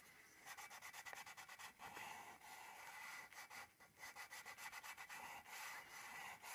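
Faint scratchy rubbing of a chalk pastel stick on paper in quick, short repeated strokes, with a couple of brief pauses.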